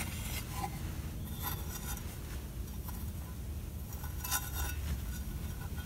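Steel trowel scraping through dry lime powder on a board, with a few short scrapes and light metallic clinks, the clearest about one and a half seconds in and again past four seconds, over a steady low rumble.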